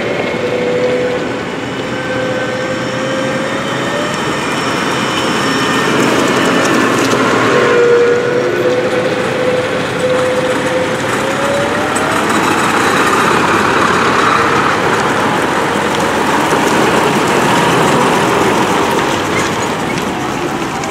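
Diesel farm tractors, New Holland models and a Mercedes-Benz MB-trac, driving past one after another. The engines run steadily, and the engine note rises in pitch twice as tractors accelerate past.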